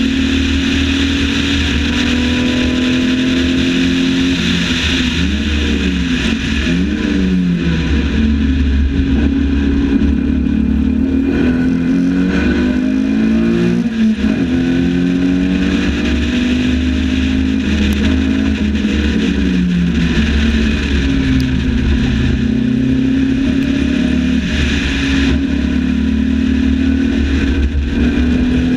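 Lotus 7 replica's engine heard from the open cockpit at racing speed, the revs climbing and falling back again and again through gear changes and corners.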